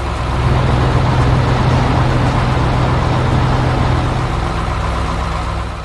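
A heavy vehicle's engine running steadily at a low pitch, then fading out near the end.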